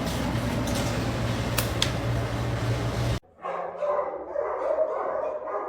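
A dog barking and yipping over a steady low hum with a few sharp clicks. The sound cuts off suddenly about three seconds in, giving way to quieter, broken-up pitched dog sounds.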